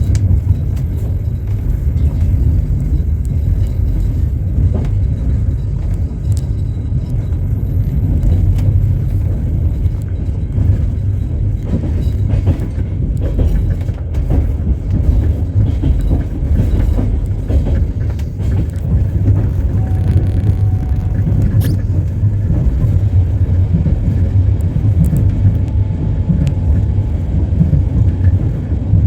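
Passenger train running, heard from inside the carriage: a steady low rumble of wheels on the rails.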